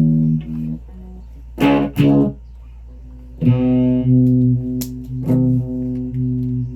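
Guitar being played: sustained notes and chords, struck about five times, each ringing on into the next.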